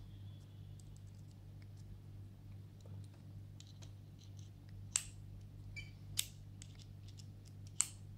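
Small metal clicks and taps as a precision screwdriver bit is handled and pushed into the precision bit adapter of a ratcheting screwdriver, with three sharper clicks in the second half, over a faint low hum.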